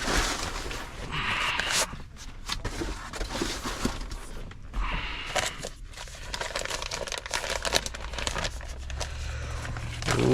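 Plastic packaging crinkling and rustling, with scattered sharp clicks of handling, as a car stereo touchscreen is pulled out of its box and unwrapped.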